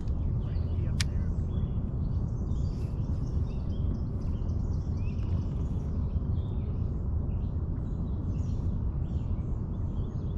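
Birds chirping and calling over a steady low rumble of outdoor background noise, with a single sharp click about a second in.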